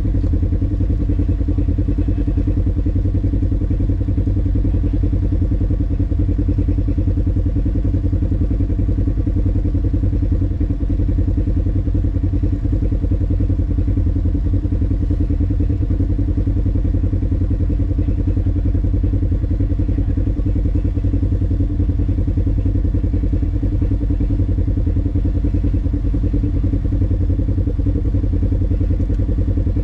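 Off-road vehicle driving along steadily: a constant engine drone and deep rumble with a continuous fine rattle.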